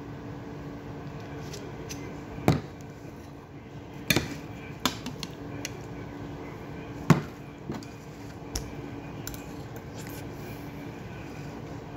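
Metal spoon clinking against a ceramic bowl and plate: about half a dozen sharp clinks spread through, the loudest a few seconds in, over a steady low hum.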